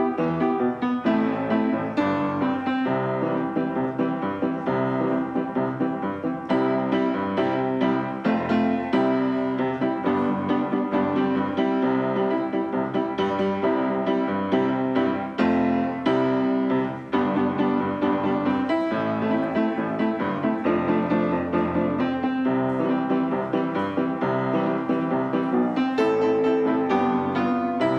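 Piano music, a steady flow of many notes with no singing or speech.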